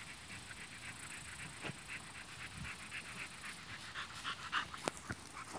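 An American Staffordshire terrier panting rapidly, about five breaths a second, with a couple of sharp clicks about five seconds in.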